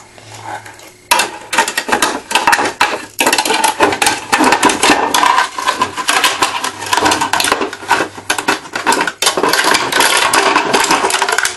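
Plastic fingerboard ramp pieces being handled and fitted together by hand: a continuous clatter of close knocks and rustles, starting about a second in.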